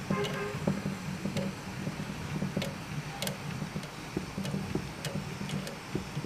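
Scattered small clicks and taps from hands turning the 3D printer's auto-bed-levelling sensor and its mounting nut, over the steady hum of the switched-on printer.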